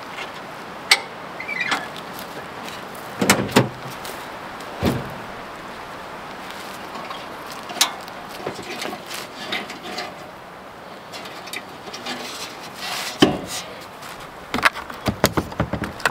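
Gear being handled at the back of a pickup truck: scattered knocks, clunks and clicks of hard cases and latches. There is a heavier knock about three seconds in and a quick run of clicks near the end.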